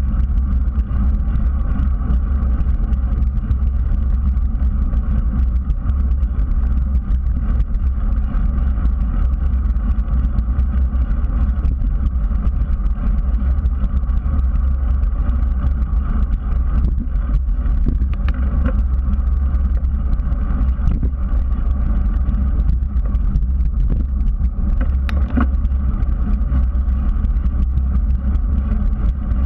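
Steady low rumble of wind and tyre noise on a GoPro mounted on a moving bicycle riding over pavement, with a couple of brief knocks in the second half.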